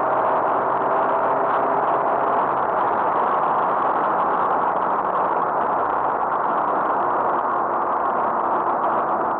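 Steady road and wind noise inside the cabin of a 1985 BMW 735i at cruising speed, with a faint hum from its straight-six engine that fades about two seconds in and returns near the end.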